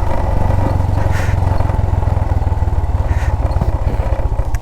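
Motorcycle engine running steadily while being ridden, its firing pulses fast and even.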